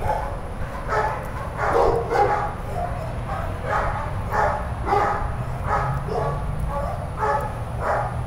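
A dog barking over and over, about a dozen short barks at an uneven pace, over a low steady rumble.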